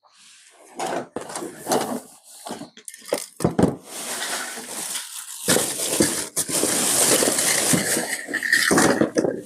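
Plastic snap-together circuit parts clicking and clattering as a hand rummages through a box of them, then a thin plastic bag crinkling and rustling almost without a break for several seconds.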